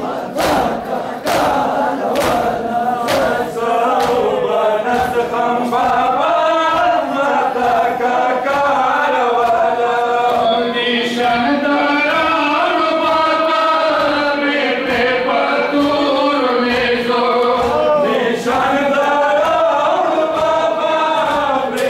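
Rhythmic hand slaps of Shia matam chest-beating, about one every 0.7 s. From about four seconds in, men's voices chant a Muharram mourning lament (nauha) over the continuing beat.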